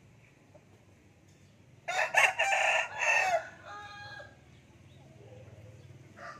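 A gamecock rooster crows once, loudly, about two seconds in. The crow lasts about a second and a half and trails off into fainter calls.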